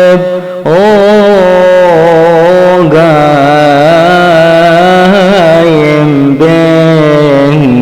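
A male voice chanting a Coptic church hymn. He sings long, ornamented notes that waver up and down in pitch, with short breaths about half a second in and again near the end.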